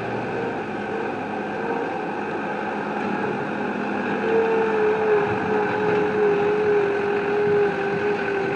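An engine running steadily, joined about four seconds in by a steady whine that holds at one pitch.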